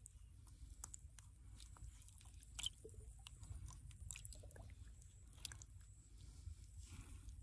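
Faint wet squelches and clicks of a fish slithering over soft wet mud into shallow water, with one sharper click about two and a half seconds in.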